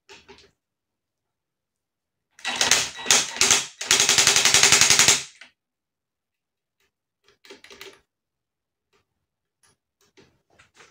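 A few sharp metallic clacks, then a fast, even rattle lasting just over a second, from tool and metal-part work on a motorcycle two-stroke engine's crankcase. Faint taps and clicks follow.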